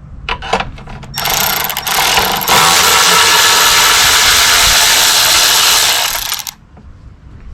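Cordless 1/4-inch ratchet with a 10 mm socket running to undo a battery hold-down nut: a few short clicks, then a steady run from just over a second in that gets louder about two and a half seconds in and stops about a second before the end.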